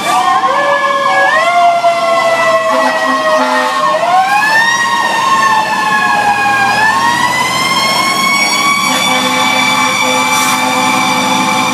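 Sirens of a responding fire engine, heard from inside its cab: one tone slowly rising and falling in pitch, over a faster siren cycle repeating evenly.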